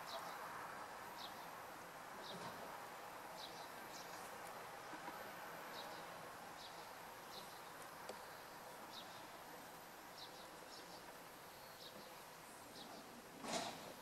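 Quiet outdoor ambience: a steady distant hum with short, faint high chirps every second or so, and a single short, louder sound near the end.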